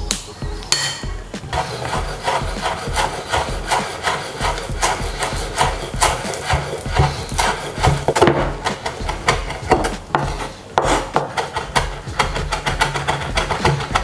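Rhythmic rasping strokes of hand food preparation in a kitchen, about four a second, with a short break about ten seconds in.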